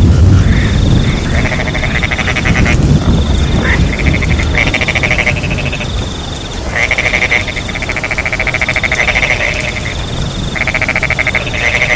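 A chorus of frogs croaking in long trains of rapid pulses, each run lasting a second or so, over a steady high-pitched cricket trill that stops and restarts every second or two. A low steady rumble runs underneath.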